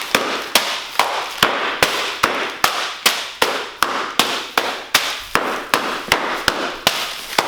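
A heavy hammer striking dry ice again and again, breaking it into pieces: sharp, even blows about two and a half a second.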